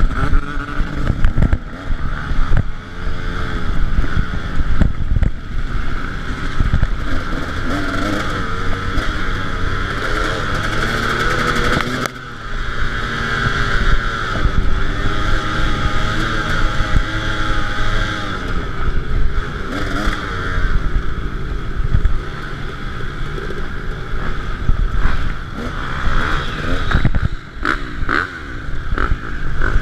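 KTM 300 EXC two-stroke engine revving up and down as the dirt bike is ridden hard over rough cross-country track, with repeated rattles and knocks over the bumps. The engine drops off briefly about twelve seconds in.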